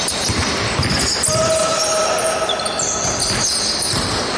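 Basketball game play: the ball bouncing on the court with repeated thumps, and several high-pitched squeaks of sneakers on the floor.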